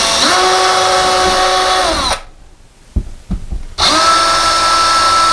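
Cordless drill running at a steady low speed as it bores 3/16-inch holes through drywall for molly anchors. It stops about two seconds in, a few light clicks follow, and it starts again on the second hole near the end.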